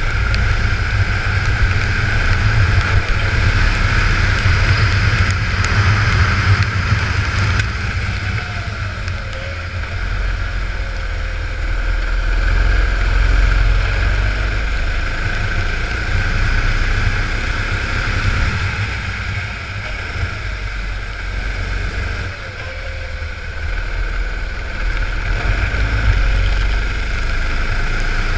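Go-kart engine running at racing speed, with wind buffeting the microphone and hiss from the tyres on a wet track. The engine note eases off briefly in the second half and then picks up again.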